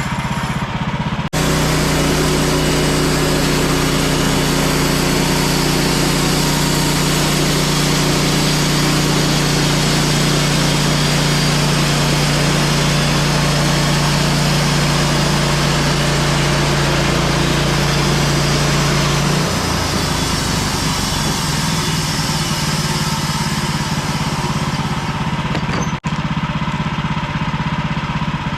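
Small gasoline engine of a portable sawmill running steadily under throttle; its note drops and roughens about two-thirds of the way through.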